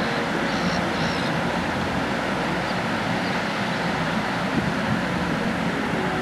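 Steady vehicle-like rumble and hiss with no breaks or changes.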